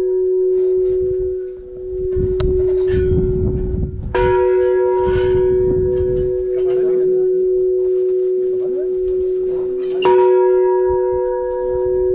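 A large bell ringing on in a long, steady hum, struck again about four seconds in and once more about ten seconds in.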